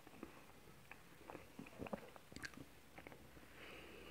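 Faint chewing of soft chocolate cake with melted ice cream: scattered soft, wet mouth clicks and smacks.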